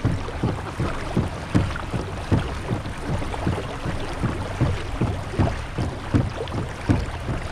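Hobie MirageDrive pedal drive being pedalled hard, a steady rhythm of knocks about two or three a second, with water washing along the kayak hull.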